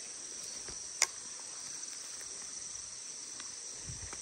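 Steady high-pitched chirring of field insects, with a single sharp click about a second in and a faint low thud near the end.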